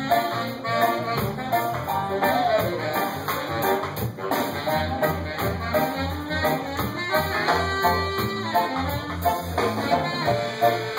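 Live rocksteady band playing an instrumental passage: saxophone over electric guitar, bass and drums with a steady beat.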